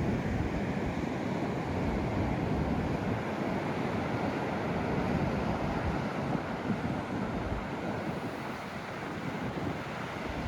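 Sea waves surging and washing under a strong wind, with gusts buffeting the microphone in brief low rumbles.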